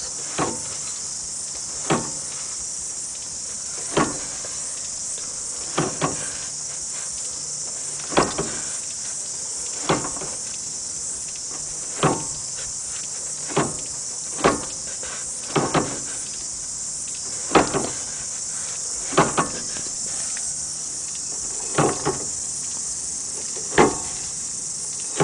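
1990 Mazda Familia's right-hand drive shaft clunking as the wheel turns: a sharp clunk about every two seconds, some coming as quick doubles, repeating through the rotation.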